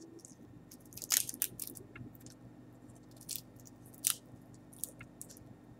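Dry, hard shell of a dehydrated giant water bug (Lethocerus indicus) crunching and cracking in irregular sharp snaps as it is picked apart by hand. The loudest crack comes about a second in.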